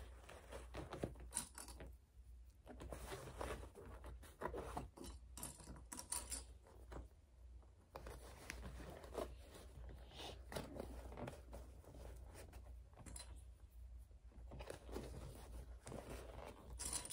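Faint, irregular rustling and scraping of shiny metallic fabric and bias tape being folded and handled by hand, over a low steady hum.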